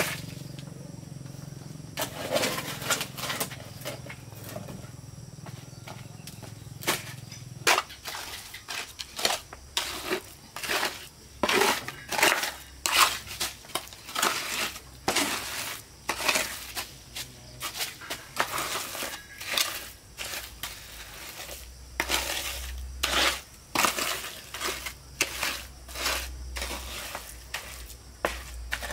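Hand-tool construction work: an irregular run of short scraping and crunching strokes starting about two seconds in, at times several a second.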